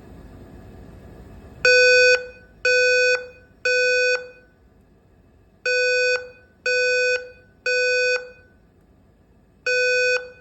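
Simplex 4100ES fire alarm system sounding its evacuation tone in the temporal-3 pattern: groups of three half-second beeps about a second apart, with a longer gap between groups. It starts about two seconds in, after a faint hiss, and is the signal to leave the floor by the nearest stairway.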